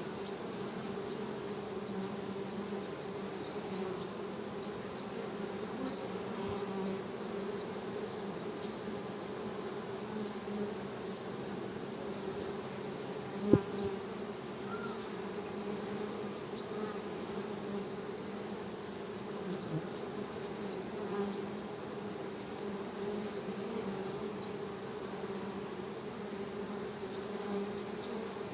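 Honey bees buzzing in a steady, continuous hum. A single sharp click sounds about halfway through.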